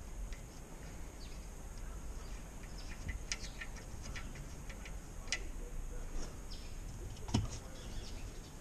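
Scattered light clicks and taps of the plastic engine undertray being handled and pushed into place from below, with a duller knock near the end, over a low steady rumble.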